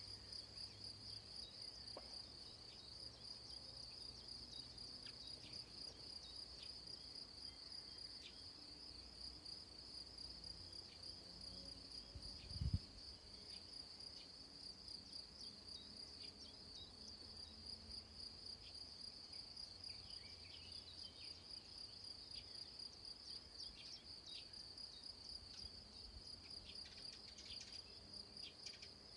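Crickets chirping in a steady, rapidly pulsing high trill, with a single low thump about halfway through.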